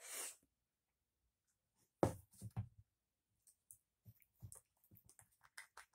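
Close-up eating sounds of a hot smoked sausage being bitten and chewed: a short breath at the start, a brief louder mouth sound about two seconds in, then a run of small wet clicks and smacks of chewing.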